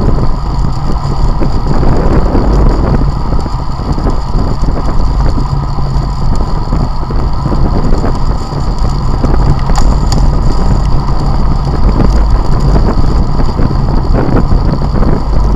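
Wind rumbling across the microphone of a camera on a road bicycle moving at about 33 km/h: a loud, steady, deep rushing noise.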